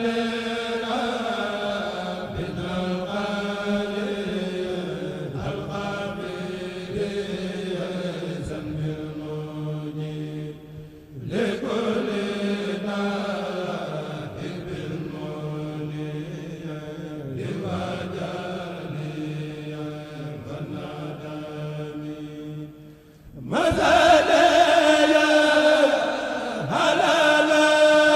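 Unaccompanied Mouride khassida (qasida) chanting by a kourel: a lead voice sings long melodic phrases over a low steady drone, with short breaths between verses. Near the end a second lead voice takes over, louder and brighter.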